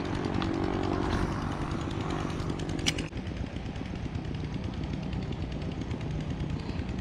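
Noisy water pump running steadily with an even mechanical drone. A single sharp click comes about three seconds in.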